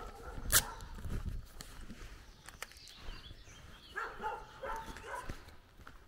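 A dog barking in short bursts, once near the start and again in a run of barks about four seconds in, with a single sharp click about half a second in.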